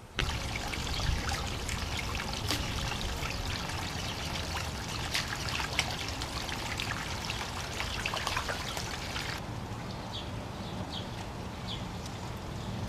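Water trickling and splashing steadily, with many small drips and plops. About nine seconds in it changes abruptly to a quieter background with a few short high chirps.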